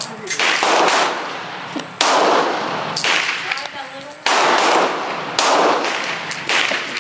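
Glock .40-calibre pistol firing a string of about six shots, roughly one a second, each shot followed by a long fading echo.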